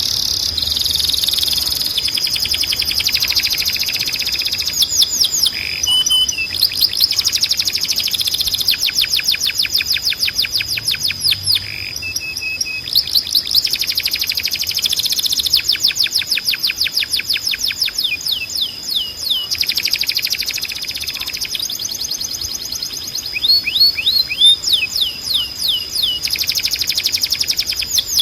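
Timbrado canary singing: long runs of rapid, evenly repeated notes, switching from one trill to the next every second or two, over a steady high tone held underneath.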